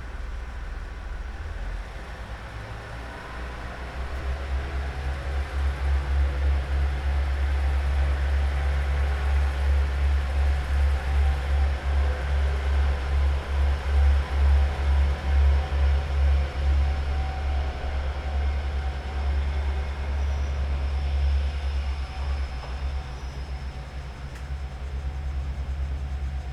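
Kominato Railway diesel railcar running with a strong, low engine sound that grows louder about four seconds in and eases off near the end.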